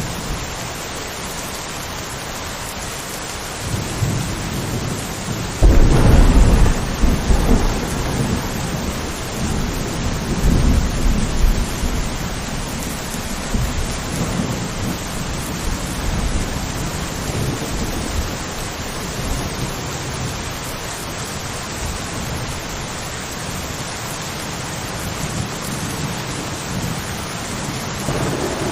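Steady rain with a thunderclap. A low rumble starts about four seconds in, breaks into a sudden loud crack near six seconds, and rolls on, fading over the next ten seconds or so; another rumble begins near the end.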